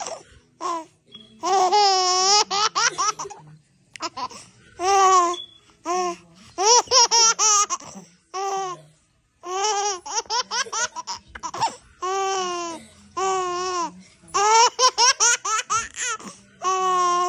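A baby girl laughing in repeated high-pitched fits, each a quick string of short giggles, with brief pauses between them.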